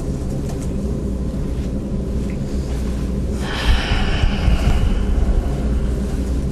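Steady low room hum under a silent pause, with a breathy rush of noise about three and a half seconds in, lasting a second or so, from a man breathing out heavily with his hand over his face.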